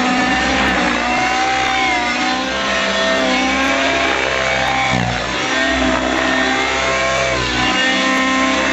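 Miniature Aircraft Stratus RC helicopter flying 3D aerobatics: a steady engine and rotor whine whose pitch sweeps up and down several times as it manoeuvres.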